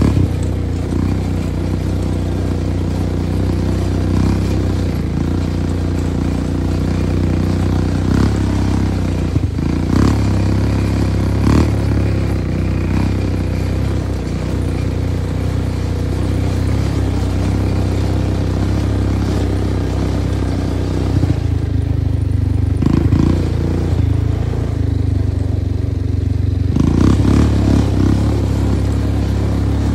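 A motor vehicle's engine running steadily, a constant low drone, with a few clatters and knocks now and then.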